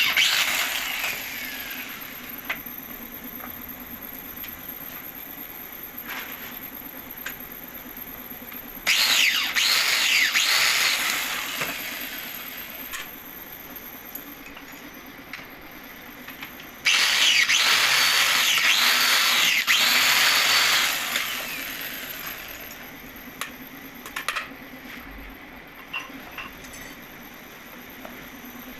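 A power tool runs in three bursts: briefly at the start, then about 9 seconds in and about 17 seconds in. Each burst starts suddenly and winds down over a few seconds, over a steady low hum. A few light clicks follow near the end.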